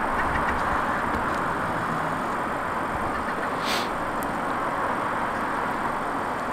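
Steady motor-vehicle noise: an even rumble and hiss with no siren.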